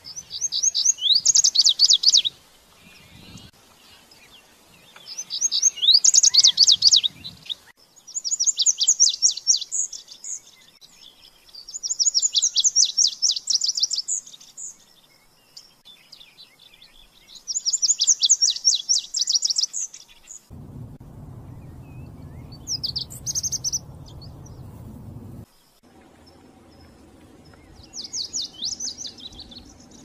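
Male lazuli bunting singing: a quick, high, two-second phrase of varied sweet notes, repeated six or seven times with pauses of a few seconds between.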